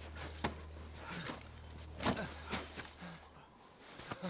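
Boots crunching and bodies thudding in snow and ice as climbers scramble down into a crevasse: a handful of sharp crunches over a low steady rumble that cuts off about three seconds in.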